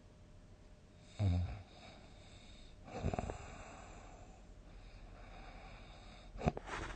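A sleeping person snoring: a short, low-pitched snore about a second in, a louder rattling snort around three seconds, and a brief sharp snort near the end.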